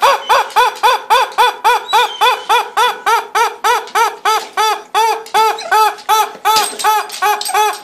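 Purple squeaky toy chicken squawking over and over as a dog chews on it, about three or four squeaks a second, each one rising and falling in pitch.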